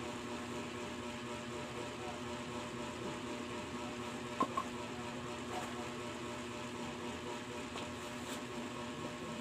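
A steady mechanical hum with several held tones, like a small motor running. Two short clicks come close together about four and a half seconds in.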